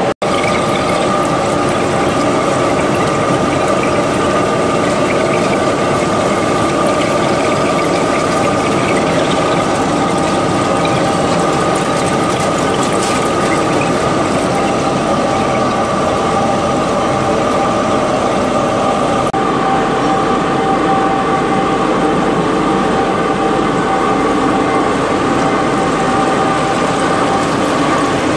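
Large lathe trepanning a deep bore through a steel shaft: a steady cutting noise with a constant whine over it, unchanging in rhythm. The high hiss eases a little about two-thirds of the way through.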